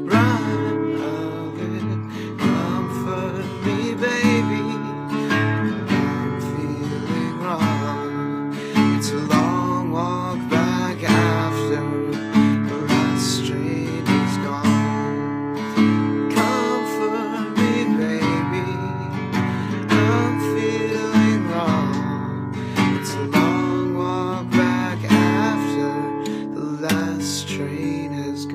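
A man singing a country-folk song over strummed acoustic guitar.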